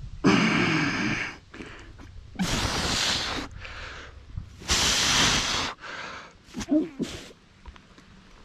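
A man's heavy breathing close to the microphone, strained by the effort of fighting a big fish on a bent rod. Three loud exhalations about a second long come roughly two seconds apart; the first carries a groan. A few shorter, softer breaths follow.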